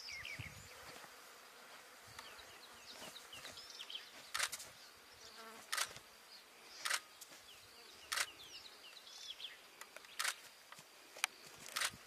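A rhino grazing: short tearing bursts of grass being ripped up, roughly every second or two from about four seconds in, over outdoor ambience with birds chirping and faint insect buzzing.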